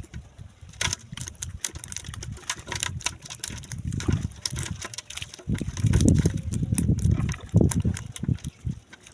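Water sloshing and splashing, with many small splatters and heavy low rumbling surges, loudest from about five and a half to eight seconds in.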